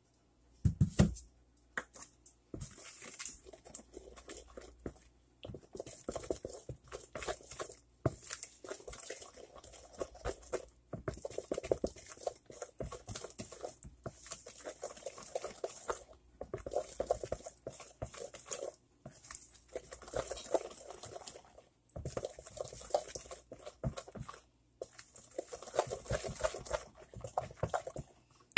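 Wooden spoon stirring thick batter in a plastic mixing bowl, working oil into it: wet scraping and slapping in runs of a few seconds with brief pauses. A few loud knocks about a second in.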